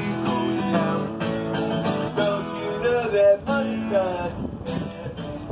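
Background music: strummed and plucked acoustic guitar with a melody line over it.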